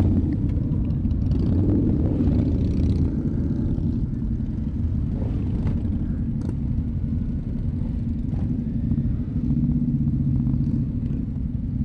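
A crowd of motorcycle engines running at low revs as the bikes roll off slowly together, a steady low rumble, with the rider's own Kawasaki Ninja 636 among them.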